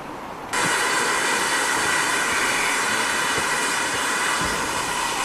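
Steam locomotive venting steam: a loud, steady hiss that starts suddenly about half a second in.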